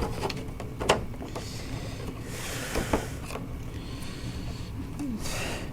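Pokémon product packaging being handled and opened: rustling with a few sharp clicks and crinkles, loudest around the middle.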